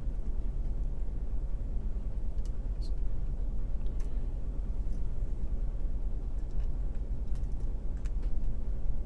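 A lock pick working the pins of a pin-tumbler lock: a few faint, scattered ticks and clicks over a steady low rumble.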